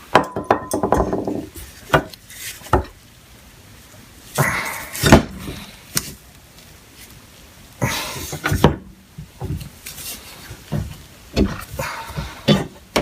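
Irregular metal knocks and clanks, with some scraping and rattling, as the Atlas lathe countershaft spindle is worked out of its housing. The loudest knock comes about five seconds in.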